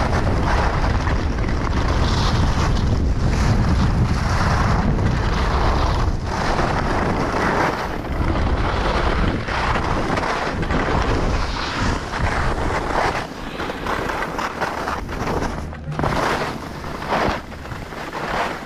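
Wind buffeting a chest-mounted action camera's microphone as a skier descends at speed, with the hiss and scrape of skis on snow. The low rumble of the wind is heaviest for the first few seconds, then the sound turns uneven with rhythmic surges from the turns.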